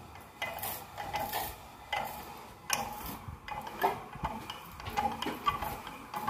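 Hand-cranked well winch, a steel-cable drum on a pipe shaft resting in wooden blocks, turning as the cable pays out to lower a worker down the well. It gives irregular clicks, knocks and short squeaks.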